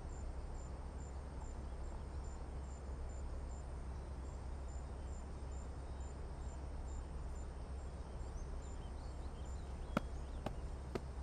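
Faint outdoor ambience: an insect chirping high and evenly, about two or three chirps a second, over a steady low hum. Near the end come a couple of sharp taps, like footsteps.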